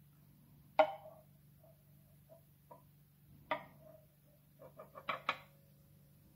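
A few sharp clicks and knocks over a low steady hum: a loud one about a second in, another midway, and a quick run of four or five near the end, the last ones leaving a short ringing tone.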